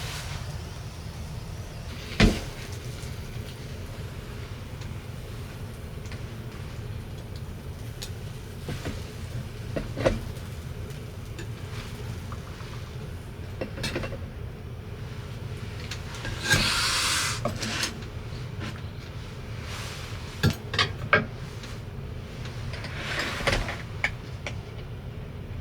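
Scattered clicks and knocks over a steady low hum, with a short hissing burst about two-thirds of the way through and another near the end.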